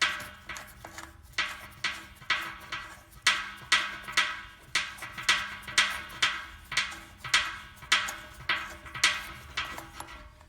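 Music with a steady woodblock-like percussive beat, about two knocks a second, over a faint sustained tone.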